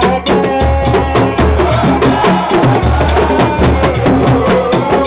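Baye Fall devotional music: drums struck rapidly and densely with a deep pulse, under voices chanting together.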